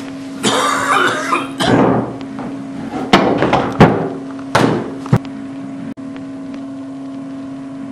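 A steady electrical hum with one held low tone throughout. From about half a second to about five seconds in, loud bursts of rustling and handling noise come with several sharp knocks, the loudest about three and four seconds in.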